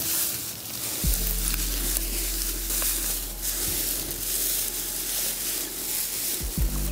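Dry thatching grass rustling and crackling as it is handled and spread, a dense dry crackle with fine ticks. Low sustained background music notes come in about a second in.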